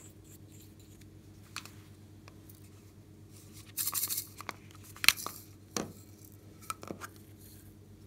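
Hard plastic toy being handled: a short rasping scrape about four seconds in, then a sharp plastic click and a few smaller clicks.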